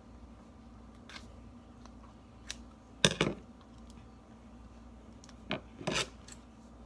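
Metal scissors and a small plastic object handled on a countertop: a few sharp clacks and knocks, the loudest about three seconds in and another pair near six seconds, over a faint steady hum.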